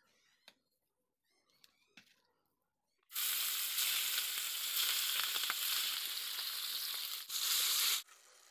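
Turmeric-coated rohu fish steaks sizzling in hot oil in a kadai. The sizzle starts suddenly about three seconds in, dips briefly near the end and then cuts off.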